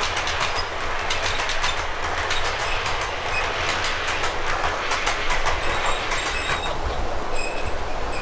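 OO gauge model tank locomotive pulling two coaches around the track: a steady whirring run with its wheels clicking rapidly over the rails and a low hum.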